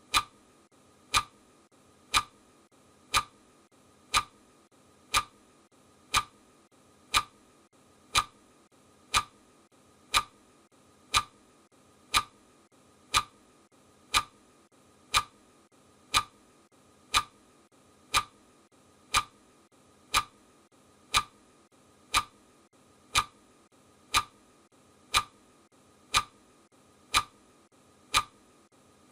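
Clock ticking of a countdown timer: one sharp tick each second, evenly spaced and steady.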